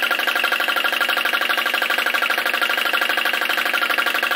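Flame licker vacuum engine running fast and steadily with a rapid, even beat, unloaded with its belt-driven generator switched off.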